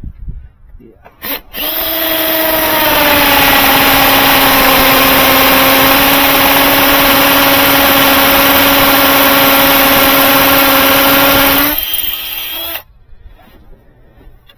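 Hammer drill with a long masonry bit boring into a house wall. It starts about a second and a half in, its motor whine settling slightly in pitch, and runs steadily for about ten seconds. Near the end it eases to a lower level, then stops.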